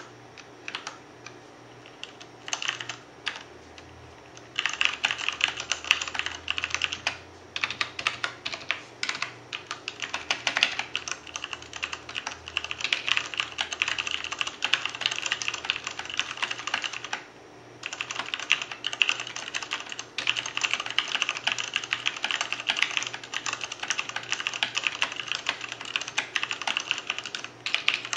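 Fast continuous typing on a Ducky Shine 2 mechanical keyboard with Cherry MX Clear switches and thin PBT keycaps, rapid clicky keystrokes. A few scattered keypresses come first, then steady quick typing with a short pause about two-thirds of the way through.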